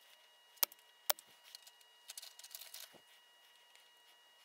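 Two sharp snips of hand wire cutters on the copper conductor ends of Romex cable, about half a second apart, then light scratching and crackling as pliers work at the wire ends.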